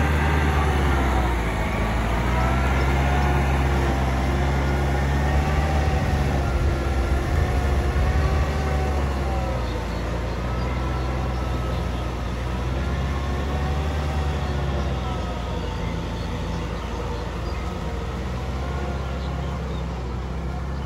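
Kubota tractor's diesel engine running steadily under load while its rear rotary tiller churns a flooded paddy, with a higher whine that wavers up and down. The sound grows slowly fainter as the tractor moves away.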